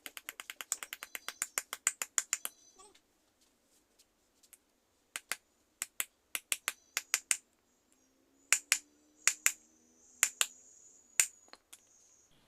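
Hammer tapping a new ball bearing into the Scorpio's tensioner pulley, sharp metal-on-metal strikes: a quick run of about ten a second for the first three seconds, then scattered single blows, some louder, near the end.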